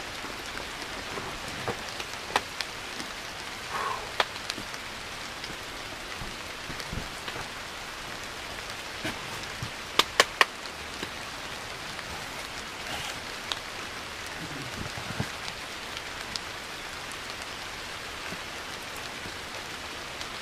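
Steady rain falling outside a rock overhang, an even hiss with scattered sharp drip-like taps. About halfway through, three sharp clicks come in quick succession.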